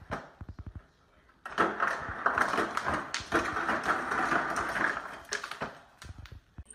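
Frigidaire refrigerator's door ice dispenser worked by a dog pawing its lever. A quick run of clicks, a short lull, then about three and a half seconds of ice cubes rattling and clattering down the chute, tapering to scattered ticks.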